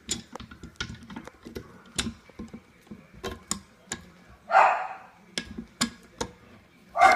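Irregular sharp clicks and knocks of plastic toilet-tank parts and tools being handled as a part is taken off the tank. Two louder, short, rough bursts come about four and a half and seven seconds in.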